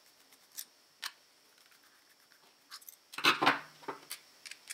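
Faint clicks of a screwdriver and plastic parts being handled on a watch winder's plastic gearbox housing, then a louder cluster of knocks and rattles about three seconds in as the screwdriver is put down on the table and the housing handled.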